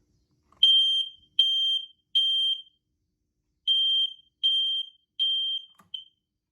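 Firex ionization smoke alarm sounding its test alarm: a loud, high-pitched beep in the three-beep pattern (three beeps, a pause, three more beeps), then a short seventh beep that cuts off as the alarm stops.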